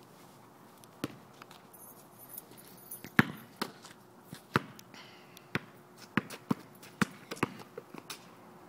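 Basketball being dribbled on a hard court, about ten separate bounces at an uneven pace. The loudest bounce comes about three seconds in.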